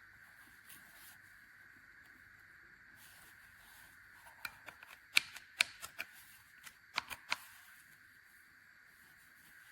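A quick run of about a dozen sharp clicks and taps in the middle, over a faint steady high-pitched hiss.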